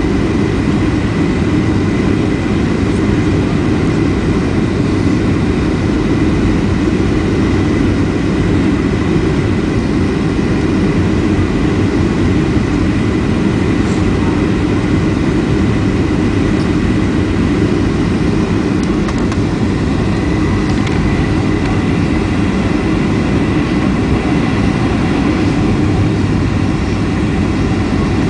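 Steady cabin noise inside an airliner: the low, even rush of engines and airflow, with a faint steady high whine above it.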